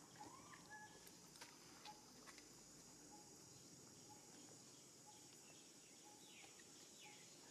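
Faint outdoor ambience: a steady high-pitched insect drone, with a faint note repeating about every half second, a few short chirps and falling calls, and a couple of small clicks.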